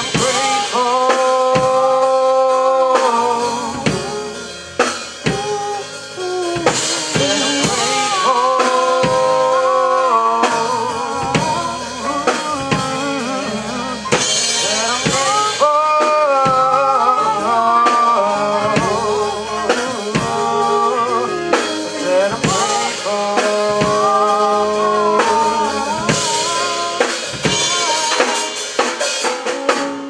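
Live band playing an instrumental soul-jazz passage: drum kit and electric bass with trumpet over chords. It eases off briefly about four seconds in, then picks up again.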